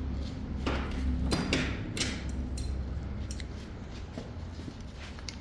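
Metal clinks and scrapes of tools and engine parts being handled, several short scrapes in the first couple of seconds and lighter clicks after, over a steady low hum.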